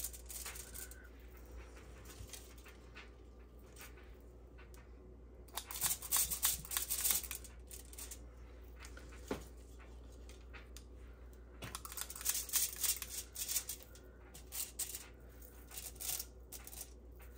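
Kitchen handling noises as sausage balls are shaped by hand and set on a cookie sheet: two spells of crackly rustling and light clicking, one about five seconds in and a longer one from about twelve seconds in, with a single sharp tap between them, over a faint steady hum.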